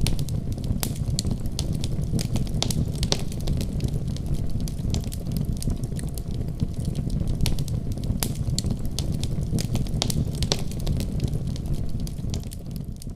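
Wood fire in a fireplace crackling, with frequent sharp pops over a steady low rumble. It fades out near the end.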